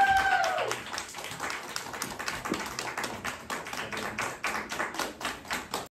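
Audience applauding, with one rising-then-falling whooping cheer at the start; the clapping fades and thins out, then cuts off suddenly.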